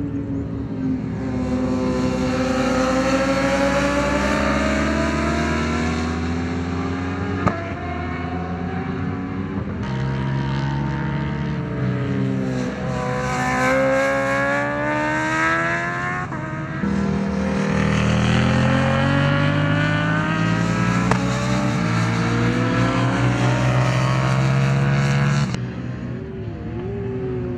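Racing sport motorcycles running at high revs, engine pitch climbing as they accelerate and sinking as they back off through the corner. The sound changes abruptly a few times.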